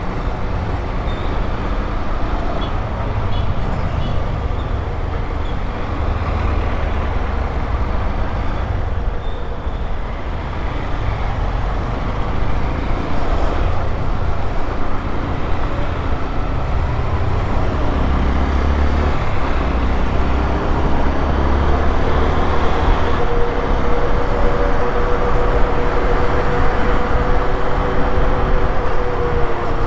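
Honda XRE 190 motorcycle's single-cylinder engine running on the move, with a steady rush of road noise. The engine's tone comes through more strongly in the last several seconds as the level rises a little.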